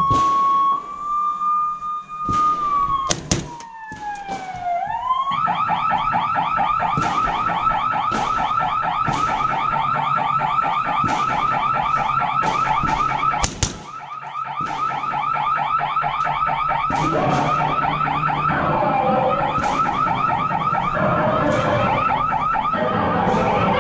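A loud electronic siren: at first a held tone that slides down in pitch, then from about five seconds in a fast, steady warble. Sharp reports of a suppressed Sig Sauer 516 short-barreled rifle cut through it, loudest a few seconds in and again just past halfway.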